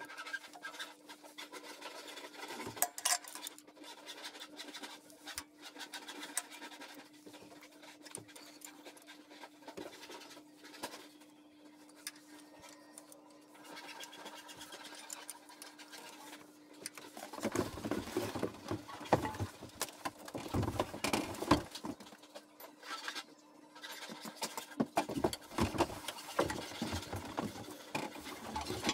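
Metal hand tools and bolts clinking and scraping against a tractor's transmission housing over a steady low hum. The handling grows louder and busier in the last ten seconds or so.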